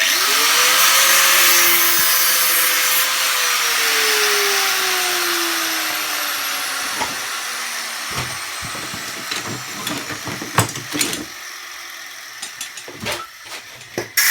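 A power tool starts up abruptly, grinding or cutting metal with a loud hiss. Its motor pitch climbs in the first second, then sinks slowly over the next several seconds as it runs down. After that come scattered knocks and clinks of metal pieces being handled.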